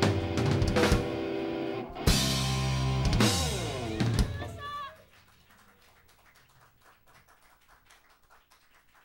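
Live rock band with drum kit and electric guitars finishing a song: a big final hit about two seconds in with notes sliding down in pitch, a last hit about four seconds in, then the sound dies away to near silence.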